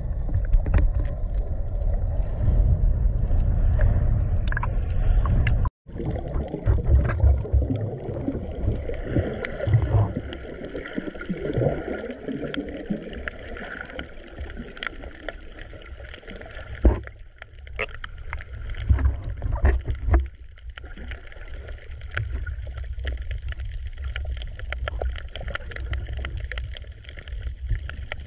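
Muffled underwater sound picked up by a camera below the surface: a low rumble of moving water with gurgling and scattered small clicks, broken by a brief dropout about six seconds in.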